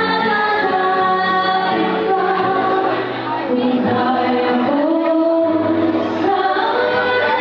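A woman singing a slow ballad live into a handheld microphone over band accompaniment with a steady bass line, holding long, wavering notes.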